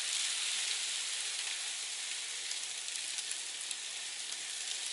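Steady hiss of freezing rain and sleet falling on the surroundings, with a few faint ticks of drops.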